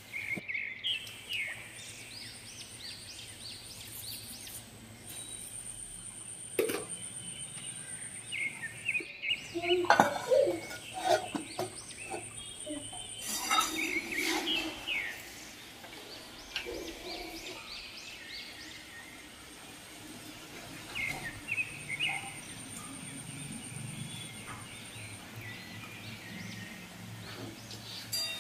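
Oil sizzling in a wok as green chillies and spices fry, with birds chirping in short runs around it and a few knocks of a spatula against the pan.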